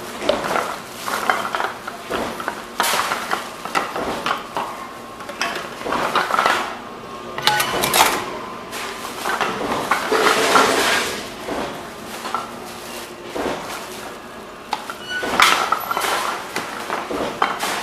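Empty beverage bottles and cans clinking and clattering as they are handled and fed one after another into a reverse vending machine, with irregular knocks and rattles throughout.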